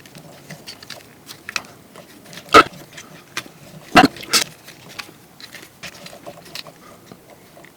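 Plastic clicks and taps from a Transformers action figure being handled and moved, with two sharper knocks about two and a half and four seconds in.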